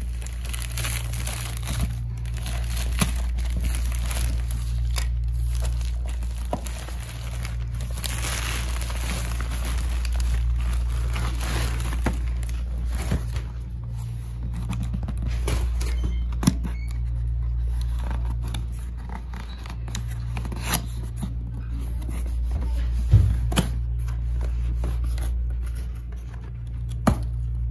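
Packaging being unwrapped by hand: a plastic mailer bag and bubble wrap crinkling and tearing, then cardboard box flaps handled with a few sharp clicks and knocks, over a steady low hum.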